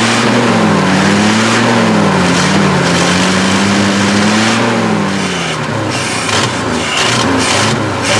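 1968 Chevy truck engine with a large exhaust leak running unevenly, its speed surging up and down, then sagging about five seconds in and stumbling with irregular sharp pops. It is being kept alive on gasoline fed in by hand after sitting unused for 15 years.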